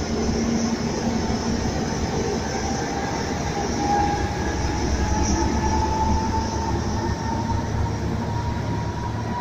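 Enterprise train pulling away, hauled by its Class 201 diesel locomotive, with a steady rumble of the coaches rolling past and a faint whine that rises slightly in pitch as it gathers speed.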